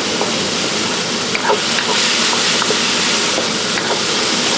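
Ham and vegetables sizzling hard in hot oil in a wok on high heat: a steady hiss, with a few light clicks as the food is stirred.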